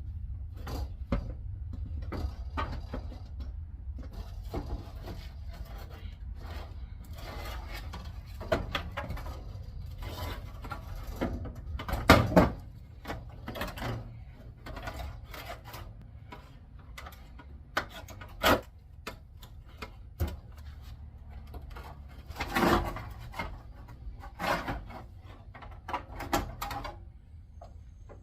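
Door glass and its metal channel being worked up and out of a steel truck door: scattered clunks, knocks and scraping, the loudest clunks about twelve and twenty-two seconds in, over a steady low hum.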